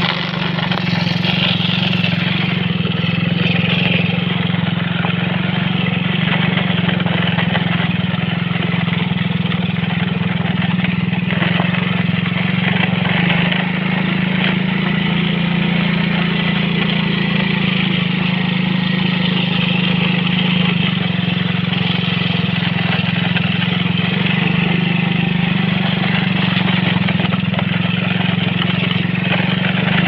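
Small motorcycle engine running steadily as the bike is ridden, a loud, even drone that hardly changes in pitch.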